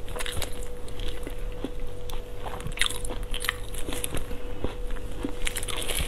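Close-up eating sounds of a person biting and chewing a Northeastern Chinese blood sausage (dongbei xuechang), many short irregular mouth clicks, over a faint steady hum.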